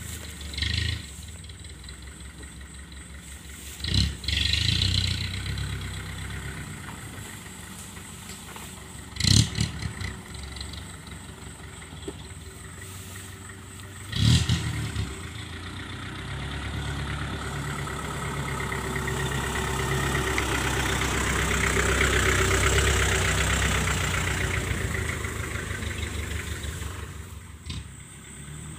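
Off-road 4x4's engine running at low speed as it crawls through tall grass, with a few short loud bursts. The engine grows steadily louder in the second half as the vehicle comes closer, then eases off near the end.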